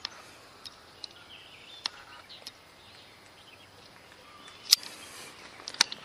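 Outdoor forest ambience with faint birdsong and several short, sharp clicks scattered through, the loudest about three-quarters of the way in.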